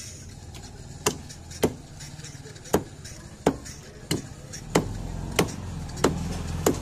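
Heavy cleaver chopping raw chicken on a wooden log chopping block: about nine sharp chops, roughly one every two-thirds of a second. A low hum grows louder in the second half.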